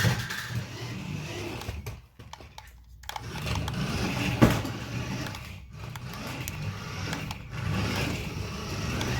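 Electric motor and gearbox of a 1:14 scale four-wheel-drive RC monster truck running as it drives, dropping away about two seconds in and picking up again about a second later. A single sharp knock about four and a half seconds in.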